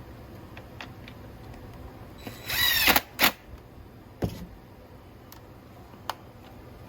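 A power drill spins up with a rising whine for under a second, then gives a second short burst. A knock follows about a second later, and there is a light click near the end.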